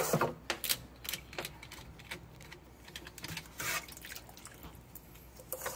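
Water splashing and dripping in a stockpot sous-vide bath as a turkey in a plastic bag is handled, with irregular clicks and knocks against the pot. A faint steady low hum runs underneath.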